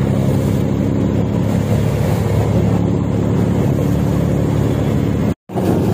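Patrol boat's engine running at speed, a steady low drone, with water rushing along the hull. The sound cuts out for an instant near the end.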